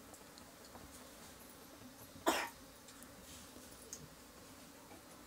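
A person coughs once, sharply, about two seconds in, over quiet room background.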